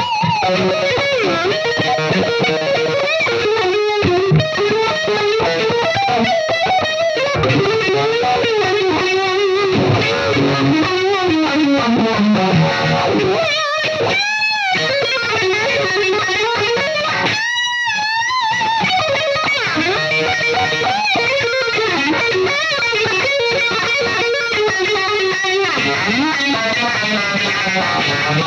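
Distorted electric guitar played through a Roger Mayer Voodoo-Vibe, a Uni-Vibe-style pedal, its sound wavering. Long sustained notes are bent up and down without a break, with two held notes swelling in the middle.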